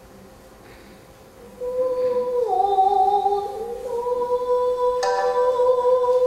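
Nagauta accompaniment to a Japanese dance: after a soft opening second and a half, a singer holds a long note that slides down and back up in steps. Two sharp plucked notes, typical of shamisen, come in near the end.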